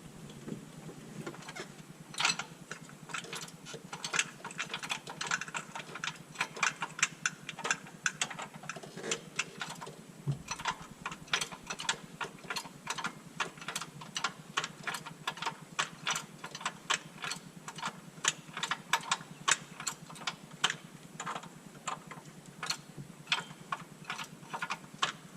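Rapid, irregular metallic clicks and knocks, several a second, as a transmission on a transmission jack is worked up into place under a car.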